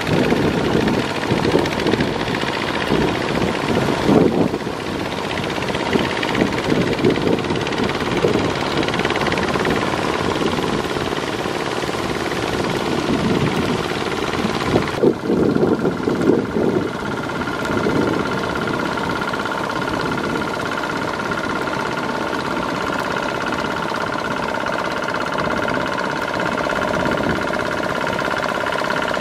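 Kubota RT140 single-cylinder diesel on a two-wheel walking tractor running steadily under load as it drags a cultivator through flooded paddy mud, with the mud and water churning. About halfway through the sound changes to a steadier engine note with a constant high whine.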